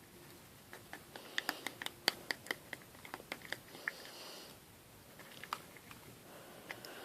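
Faint, sticky clicking and smacking of a glue-and-clay slime mixture being stirred in a container, a quick run of clicks about four or five a second, then a few more after a short pause.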